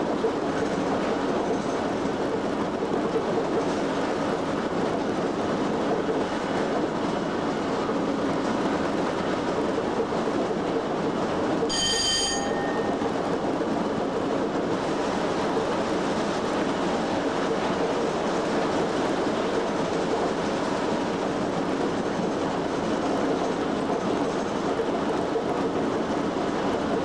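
Inside the cab of a British Rail Class 87 electric locomotive running at speed: a steady rumble of wheels on rail with a low hum. About twelve seconds in there is a single short bell-like ding that fades away within a second.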